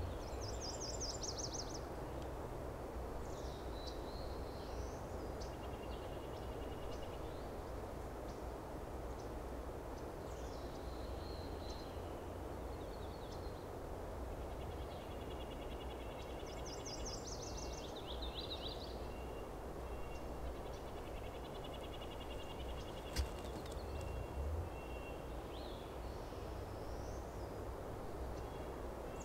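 Small songbirds calling and trilling off and on in short high-pitched phrases over a steady, faint outdoor background hiss, with one sharp click about 23 seconds in.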